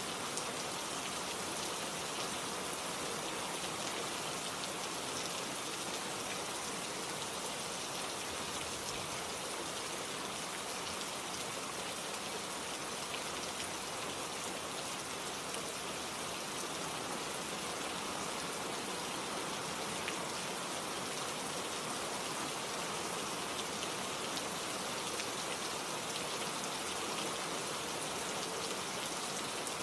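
Steady rain falling, a continuous even hiss of drops with faint individual drop ticks.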